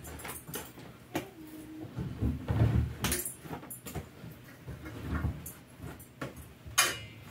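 Laundry being pulled out of a front-loading washing machine drum: rustling cloth, with irregular soft knocks and small clicks.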